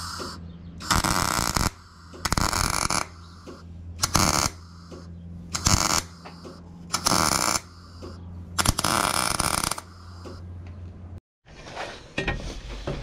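A MIG welder laying short welds on a steel manure-alley scraper: about six bursts of arc crackle, each half a second to a second long, with a steady electrical hum between them. The welding stops abruptly about eleven seconds in.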